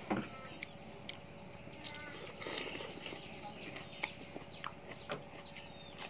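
Mouth sounds of someone eating with her fingers: chewing and lip-smacking, with short sharp clicks, the loudest just after the start. Birds chirp repeatedly in the background.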